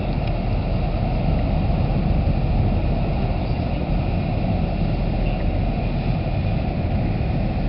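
Steady low rumble of the Commodore Clipper ro-ro ferry's diesel engines and propellers as it manoeuvres at slow speed onto its berth, with a faint steady whine above it.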